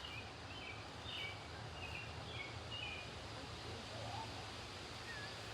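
A songbird singing a run of short, high chirps over the first three seconds, over steady outdoor background noise.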